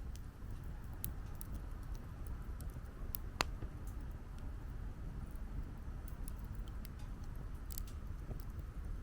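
Wood campfire crackling, with scattered small pops and one sharp, louder pop about three and a half seconds in, over a steady low rumble.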